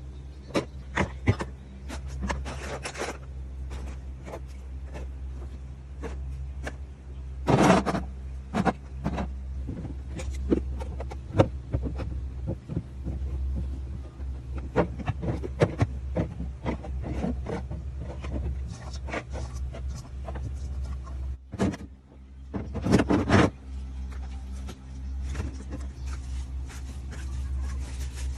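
Containers and food items being handled and set down while a fridge is stocked, a scatter of clicks, clinks and knocks with louder clusters about eight seconds in and again near the end, over a steady low hum.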